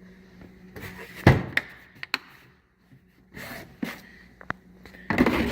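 Metal tools being handled in a tool box drawer: a series of sharp clunks and knocks, the loudest about a second in, with a rattling scrape near the end.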